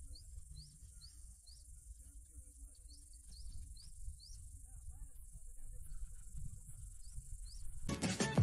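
Insects shrilling in a steady high hiss, with repeated short rising chirps that are most frequent in the first few seconds, over a low rumble and faint distant voices. Near the end a loud musical sting cuts in.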